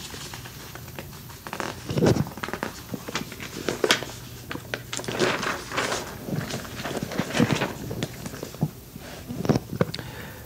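Irregular crackling and rustling handling noise, louder in a few short bursts, over tape hiss and a faint low hum, from an old microphone recorded into an old tape deck with the input at maximum.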